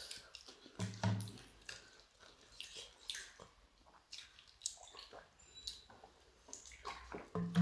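Faint eating sounds: chewing with soft wet clicks and squishes from a meal of rice, prawn curry and chicken pakoda. A short low hum of a voice comes about a second in.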